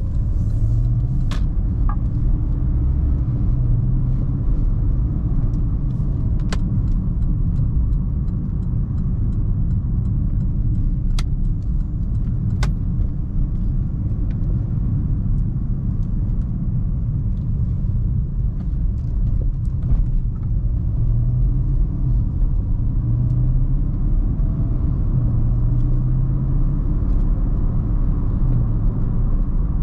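Porsche Panamera Turbo's 4.8-litre twin-turbo V8 and tyre and road noise while driving: a steady low rumble, with the engine note rising and falling a little and a few sharp clicks.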